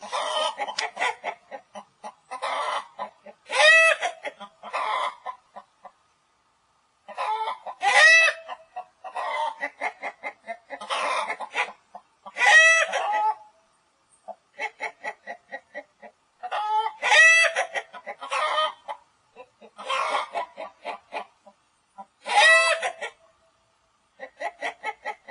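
Chicken clucking in quick runs of short clucks, with a louder drawn-out squawk in each run. The bouts repeat every few seconds with brief pauses between them.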